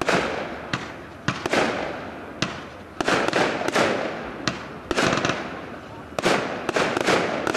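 Fireworks display: aerial shells bursting in quick succession, about two sharp bangs a second, each trailing off in a rolling echo.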